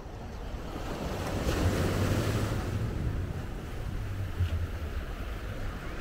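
Sea surf washing onto the shore, the hiss swelling about two seconds in and then easing, under a low rumble of wind on the microphone.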